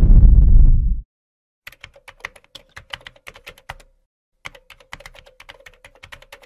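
A loud low rumble cuts off abruptly about a second in. Then a computer keyboard types in two runs of quick keystrokes, about two seconds each, over a faint steady hum.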